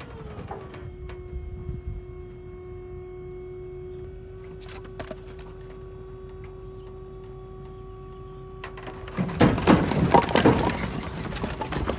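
A machine running steadily with a whine that drops in pitch just after the start, then holds one note. About nine seconds in, loud irregular knocking and crackling takes over.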